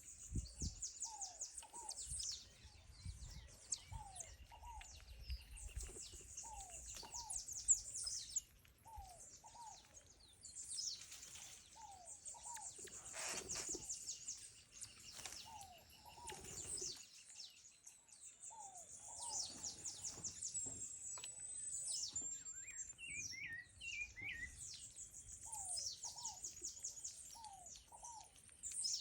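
Several birds calling: a high, fast trill that comes back every few seconds, and pairs of short falling whistled notes repeated throughout.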